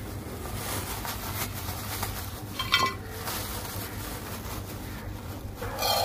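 A thin plastic bag of millet crinkles as it is handled and opened, with a sharper crackle about three seconds in and another louder sound near the end.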